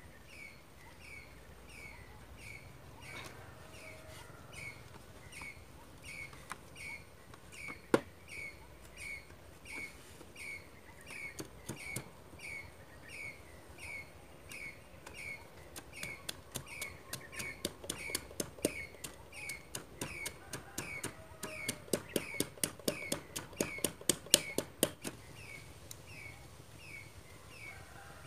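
A bird repeats a short falling chirp at an even pace, about every two-thirds of a second. About a single knock eight seconds in, then from about halfway a bamboo stick knocks rapidly inside a bamboo tube, three or four knocks a second, getting louder before stopping a few seconds before the end.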